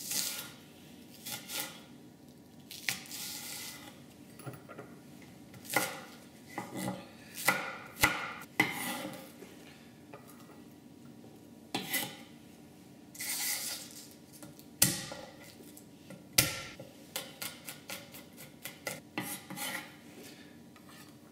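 Chef's knife chopping scallion, pickled chilies, ginger and garlic on a bamboo cutting board: irregular knocks with pauses, a quick run of chops near the end, and a few longer scrapes.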